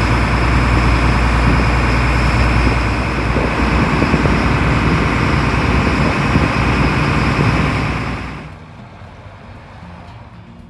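A boat's engine running steadily and loudly with a deep rumble, dropping away to a much quieter level about eight seconds in.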